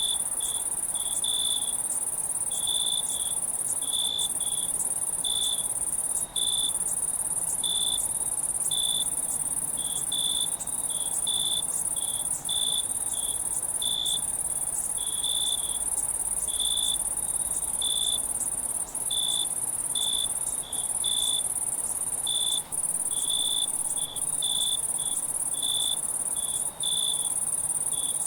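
Crickets chirping on a summer night: short chirps repeating one or two times a second over a steady high-pitched insect trill.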